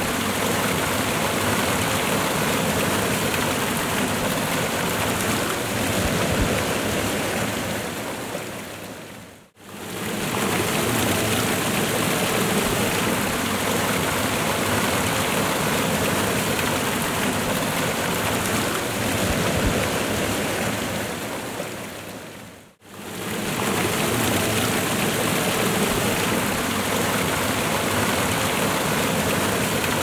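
Waterfall: a steady rush of falling water that fades out and quickly back in twice, about thirteen seconds apart.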